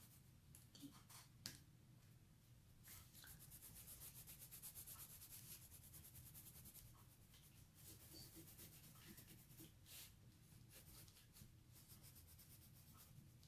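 Faint scratching of coloured pencils shading on paper, in quick back-and-forth strokes that are thickest a few seconds in.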